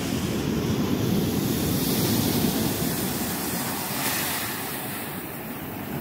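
Ocean surf: a steady wash of breaking waves that swells to its loudest about two seconds in, then eases.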